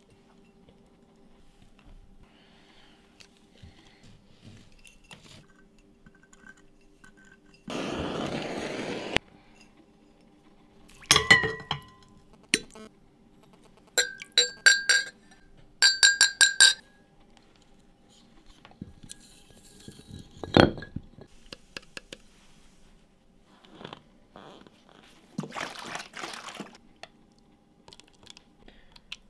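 Glass clinking: pieces of a cut glass bottle tapped together in several quick runs of sharp, ringing clinks. A steady hiss of about a second and a half comes before them, and there is a single knock a little later.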